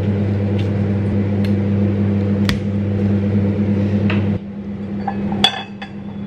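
A microwave oven runs with a steady low hum that cuts off suddenly about four seconds in. Meanwhile a knife clicks against the counter a few times while slicing lemon and ginger, and a ceramic mug clinks sharply as it is set down near the end.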